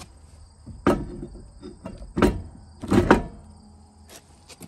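A few sharp metal clinks and knocks as lug nuts are handled and threaded onto a trailer wheel's studs by hand, with insects chirping steadily in the background.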